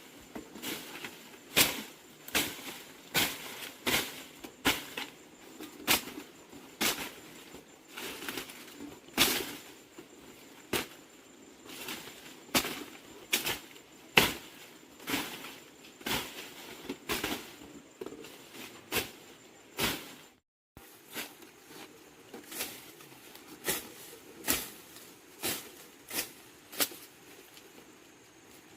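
Repeated short strokes of hand work, about two a second, each a quick scraping or brushing swish, with a brief cut to silence about twenty seconds in.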